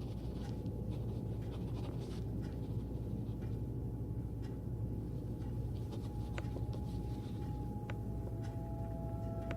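A steady low rumble with scattered small clicks and rattles. A soft sustained tone of music comes in about six seconds in.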